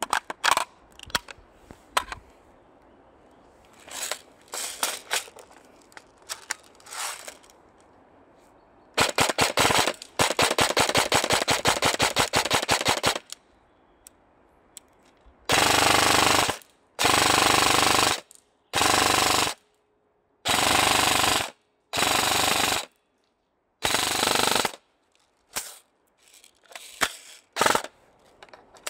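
Airsoft guns firing: scattered single shots, then about four seconds of rapid full-auto fire, then six short full-auto bursts of about a second each.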